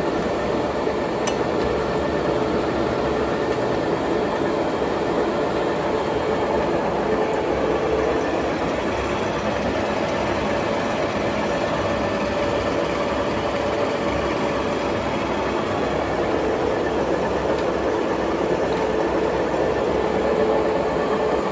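A 1954 Bullard Cutmaster vertical turret lathe running under power: a constant mechanical noise with a steady hum.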